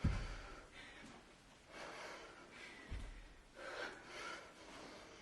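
A woman breathing hard through repeated kettlebell cleans, sharp exhalations with each rep, and a dull thud about every three seconds as the 45 lb kettlebell comes to rest.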